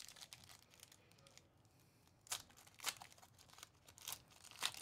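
Foil trading-card pack wrapper crinkling and being torn open by hand, a few short sharp crackles that cluster in the second half.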